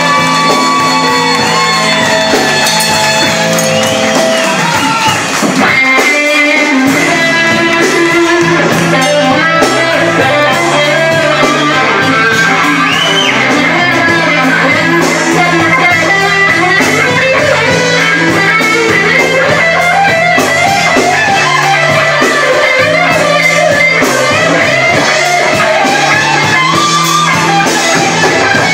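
A live band playing loudly, electric guitar to the fore over drums.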